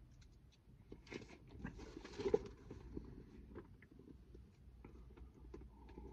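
Faint handling noises: scattered small clicks and taps, with a brief rustle about two seconds in, as a reference is looked up.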